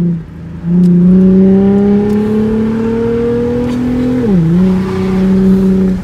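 2010 Ford Mustang's 4.0-litre V6 running with its muffler removed, heard from inside the cabin while driving: the exhaust note climbs slowly under acceleration, falls with an automatic upshift about four seconds in, then holds steady. It drops away briefly just after the start.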